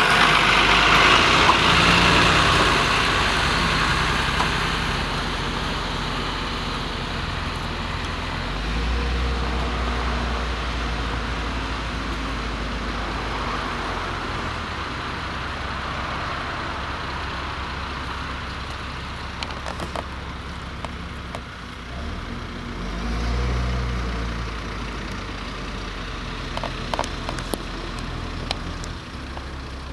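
Fire engine running, its low hum swelling twice. A loud hiss at the start fades over the first several seconds, and a few sharp clicks come near the end.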